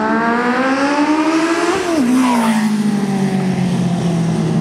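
Classic racing motorcycle engine at full throttle, its note climbing as it accelerates toward the microphone, then dropping sharply in pitch about two seconds in as it passes and carrying on at a lower, slowly falling pitch.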